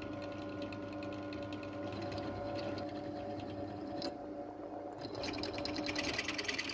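A machine's spindle motor runs with a steady hum while a drill bit cuts down into a brass insert held in a vise. From about five seconds in, the cutting turns into a louder, fast rattle of chatter as the bit bites deeper and chips fly.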